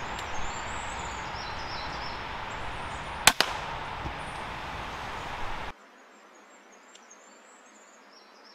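A single shot from a Weihrauch HW100 .22 sub-12 ft/lb PCP air rifle about three seconds in, one short sharp report, with small birds singing in the background.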